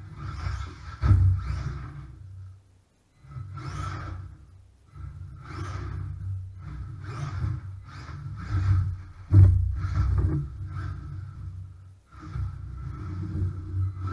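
WLtoys A979 1/18-scale RC truck's small electric motor and drivetrain whining in short throttle bursts as it drives over an OSB plywood floor, with hard knocks of the truck landing or hitting the boards, the loudest about a second in and about nine seconds in.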